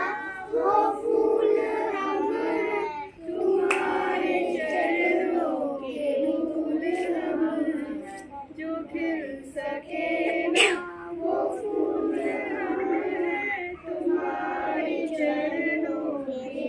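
A group of young children singing a prayer together in unison, in phrases with brief pauses between them.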